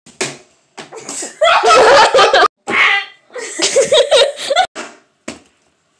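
A person laughing loudly in several bursts, with a short sharp sound near the end.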